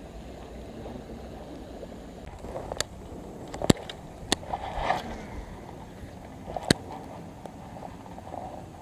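Handling noise from a baitcasting rod and reel: four sharp clicks or knocks, the loudest a little before halfway, and a short rustle just after it, over a low steady background.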